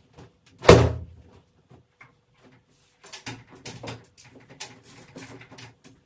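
A damp towel shaken out once with a sharp snap about a second in, then rustling and light clattering as it is draped over the bars of a metal clothes-drying rack.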